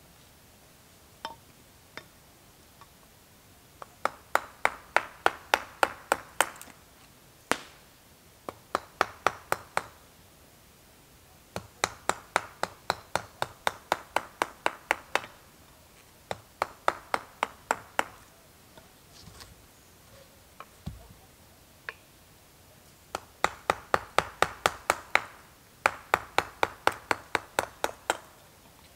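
Wooden mallet driving a carving chisel into a log: rapid, sharp knocks at about five or six a second, in runs of a few seconds broken by short pauses and a few single blows.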